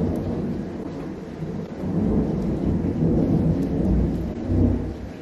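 Low rolling rumble of thunder that swells and fades over several seconds.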